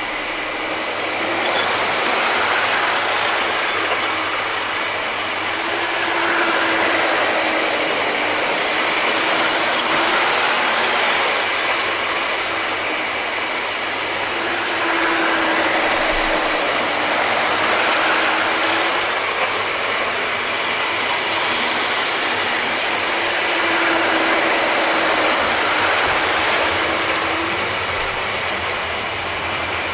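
00 gauge model trains running on track laid over carpet: small electric motors whirring and wheels running on the rails, a steady noise with a hum that rises and falls as the trains pass close by.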